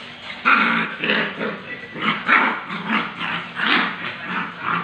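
Two puppies growling as they play-fight, a run of short rough growls about two a second.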